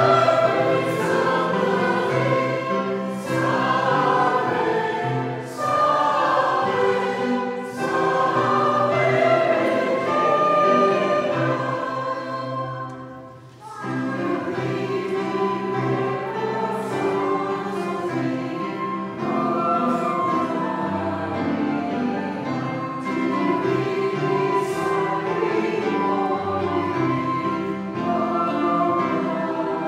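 A church congregation singing a hymn together, many voices on sustained notes. The sound briefly drops away about halfway through, then the singing carries on.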